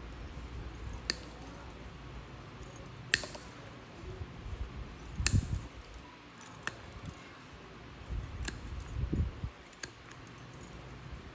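Spring-loaded toenail nippers snipping through a thick, crumbly fungal toenail: a string of about six sharp clicks, the loudest about three seconds in, with dull low thuds of handling between them.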